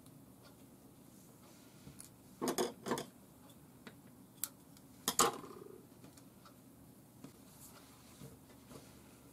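Small scissors snipping thread and handled on a tabletop: a few sharp metal clicks and clatters, with a cluster about two and a half seconds in and the loudest about five seconds in.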